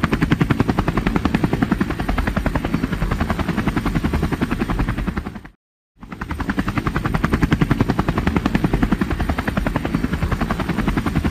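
Helicopter rotor sound, a steady fast chop of about ten beats a second. It drops out to silence for a moment a little past halfway, then comes straight back the same.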